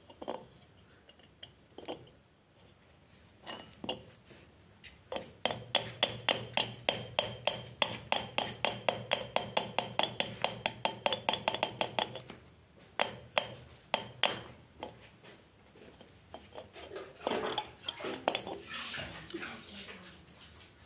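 A metal rod tapping the mechanical seal's seat down into a Tullu water pump's cast-iron seal housing. There are a few single taps, then a fast even run of ringing metallic knocks, about four a second, for around seven seconds, and a few more after it. Near the end comes a scraping rub of metal on metal.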